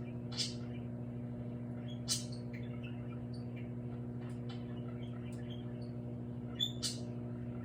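Microwave oven running with a steady mains hum while the empty plastic soda bottle inside heats, giving sharp clicks and small squeaky crackles as the plastic deforms, the loudest about half a second, two seconds and seven seconds in.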